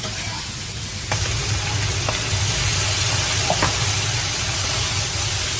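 Food cooking on a stove: a steady hiss, over a low hum, that grows louder about a second in.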